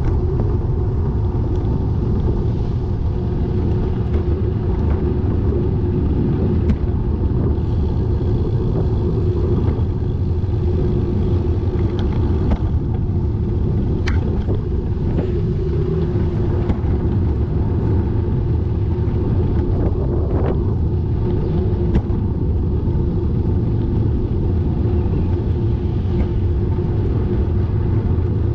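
Steady low rumble of wind and road noise while riding a bike, with a faint steady hum and a few sharp clicks scattered through it.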